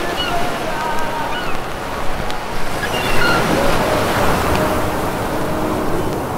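A steady rushing noise of sea and wind that swells slightly in the middle, with a few brief faint chirps over it.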